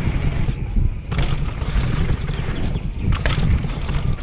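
Wind buffeting an action-camera microphone over the rumble of a downhill mountain bike's tyres rolling fast on a dirt trail. Sharp knocks of the bike rattling over bumps come about a second in and again a little after three seconds in.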